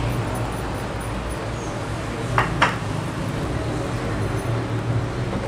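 Two sharp knocks against an aluminium cooking pot about two and a half seconds in, over a steady background hum and hiss.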